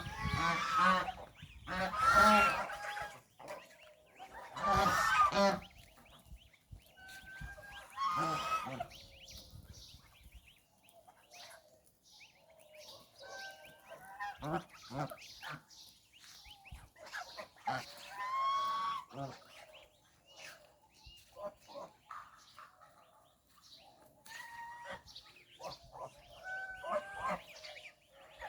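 Domestic geese honking: loud, repeated honks in about the first nine seconds, then quieter, intermittent calls.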